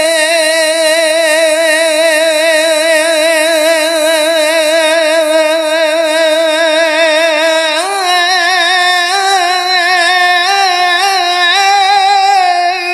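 A solo voice singing a Punjabi Sufi kalaam: one long held note with steady vibrato, then a step up in pitch about eight seconds in to a higher, ornamented phrase that fades out at the end.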